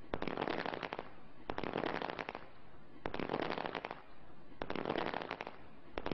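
Fireworks going off in volleys of rapid crackling bangs, a new volley about every one and a half seconds.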